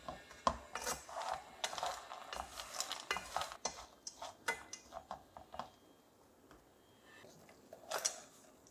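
Slotted wooden spatula stirring and scraping peanuts coated in caramelizing sugar around an aluminium pot, the nuts clicking and rattling against the metal for about six seconds. A short clatter near the end as the pot is tipped over a silicone baking mat.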